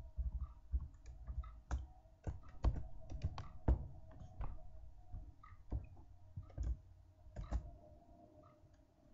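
Irregular clicks from a computer mouse and keyboard as text is selected, copied and pasted into a terminal, with a faint steady hum underneath.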